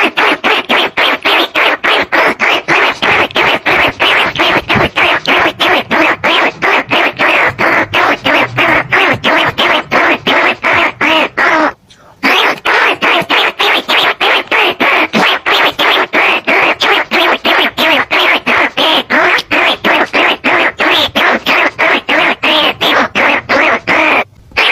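Looped recording of rice-field rat squeaks used as a trapping lure call for field and bandicoot rats. Short squeaks repeat rapidly and evenly, about five a second. The loop cuts out for a moment about twelve seconds in, then starts again.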